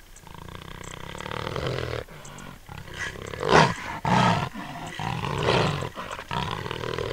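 Jaguar roaring: a long growl that swells over the first two seconds, then a series of separate roars with short gaps, the loudest about three and a half seconds in.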